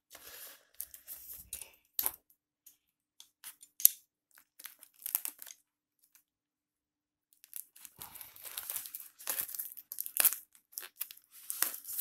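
Plastic courier mailer bag being cut with a utility knife and torn open by hand, the plastic crinkling. Short scattered rustles and snips give way, after a pause of about two seconds midway, to steadier crinkling and tearing near the end.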